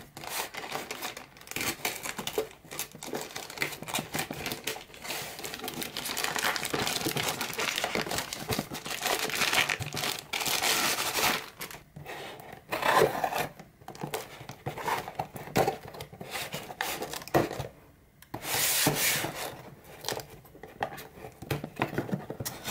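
A plastic courier satchel being cut and torn open, its plastic crinkling and tearing. Then a blade scrapes along the packing tape on a cardboard box, with shorter rustles and clicks.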